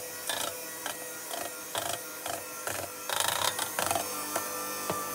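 Electric hand mixer running, its beaters churning thick batter and clicking and scraping against a stainless steel bowl. The scraping grows louder for a moment about three seconds in.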